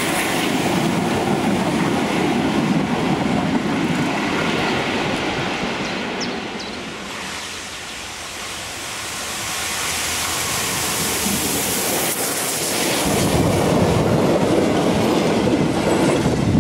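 Steam train hauled by the 1925 ČKD locomotive 354.195 running past, with wheels clattering over the rail joints. It dips to a distant rumble partway through, then grows loud near the end as the wagons roll close by.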